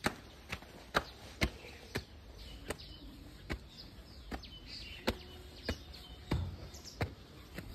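Footsteps on concrete, a steady walking pace of sharp steps about every half second to under a second. Faint bird chirps sound now and then.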